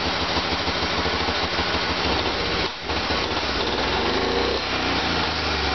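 1955 BMW Isetta 250's air-cooled four-stroke 250 cc single-cylinder engine running with an even, fast putter, then revved up and let back down a little after halfway.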